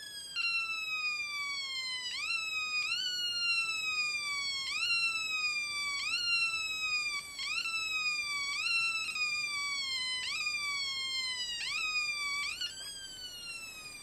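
Funway 1 two-transistor electronic siren wailing through its small speaker, a buzzy tone that jumps up in pitch each time the siren probe is pressed, then slides slowly down. The swoop repeats about a dozen times at uneven intervals.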